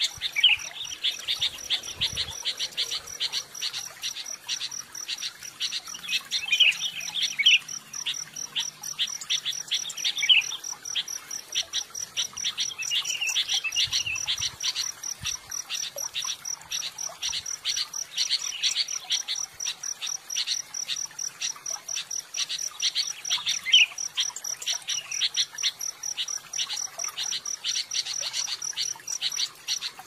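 An insect chirping in a steady, rapid, even pulse, with birds chirping over it and calling more loudly now and then.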